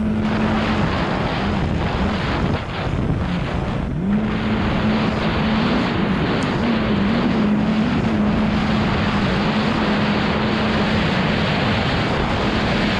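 Yamaha WaveRunner GP760's two-stroke twin engine running on the water, with spray hissing and wind buffeting the microphone. The engine note fades about a second in, climbs back near four seconds, then wavers up and down for a few seconds before holding steady.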